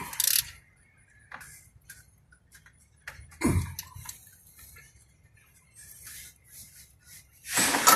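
Socket ratchet clicking in short, sparse runs while the alternator mounting bolts are tightened. There is a louder scrape about three and a half seconds in and a brief, louder noise burst near the end.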